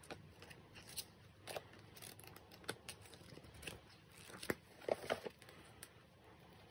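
Paper and cardboard handling: an album's photobook and box being moved about and photocards shuffled in the hands, with soft rustles and scattered light taps, a few sharper ones about four to five seconds in.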